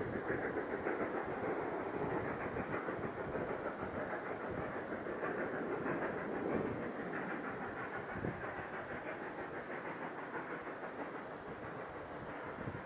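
Narrow-gauge steam locomotive working upgrade, its exhaust chuffing steadily with a continuous rumble.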